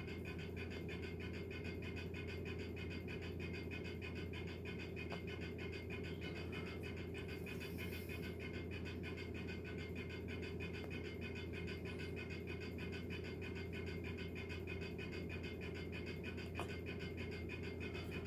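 A steady low hum with a fine, rapid flutter, unchanging throughout.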